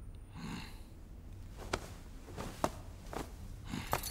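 Footsteps: four light steps at an uneven pace.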